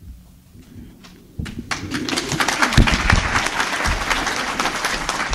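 An audience bursts into applause about a second and a half in, after a brief quiet pause.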